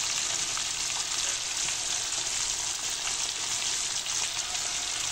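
Three whole tilapia deep-frying in a pan of hot oil, the oil bubbling and sizzling with a steady hiss and a constant light crackle of popping bubbles.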